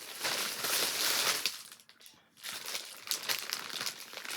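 Packaging crinkling as a package is torn open by hand: a dense run of crinkling for about the first second and a half, then after a brief pause scattered, lighter crackles.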